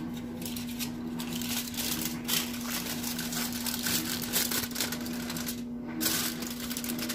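Aluminium foil crinkling and rustling as it is peeled back from a baking dish, in dense irregular crackles with a short lull about six seconds in. A steady low hum runs underneath.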